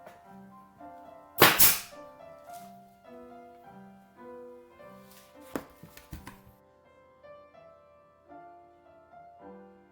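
Flooring nailer driving a cleat into hardwood boards: one loud sharp bang about a second and a half in, then a few lighter knocks about five to six seconds in. Piano music plays throughout.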